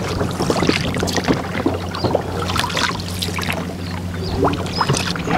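A small boat's motor humming steadily at low speed, with water splashing and lapping against the hull and scattered knocks.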